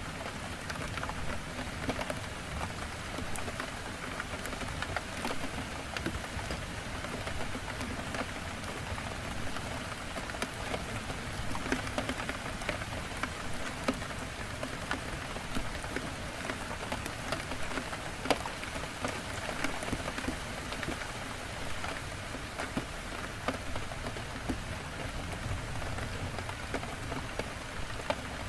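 Heavy rain falling steadily on a window, a dense even patter with many small sharp drop ticks.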